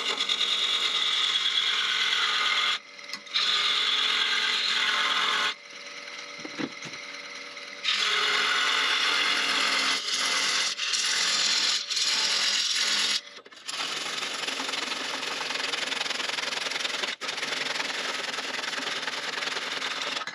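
Parting tool cutting into a spinning wooden blank on a wood lathe: a loud scraping hiss in several bouts with short breaks, and a quieter stretch about six seconds in, as the blank is parted into lid and base.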